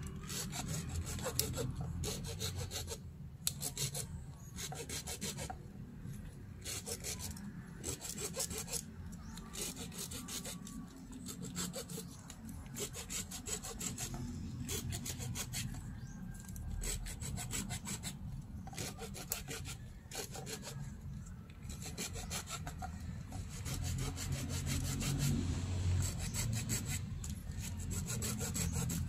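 Hand saw cutting through a thin green bamboo pole, in a steady run of back-and-forth strokes of the blade.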